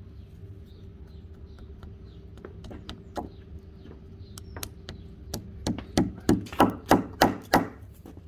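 Rubber mallet tapping a plug down into a screw hole in a timber rail. A few light taps come first, then a run of about eight harder knocks, roughly three a second, in the last few seconds.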